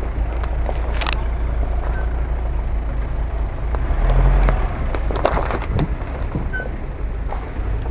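Volkswagen Amarok pickup driving slowly over a leaf-strewn forest track, its engine a low steady rumble that swells briefly about four seconds in. Scattered clicks and crackles of twigs and dry leaves under the tyres.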